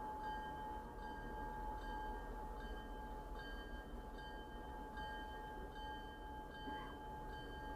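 Railroad warning bell ringing steadily, struck about every 0.7 seconds, as a locomotive nears a grade crossing.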